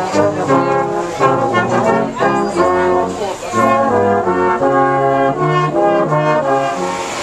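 Salvation Army brass band of cornets and tuba playing a tune in harmony, with the tuba carrying the bass notes under the melody.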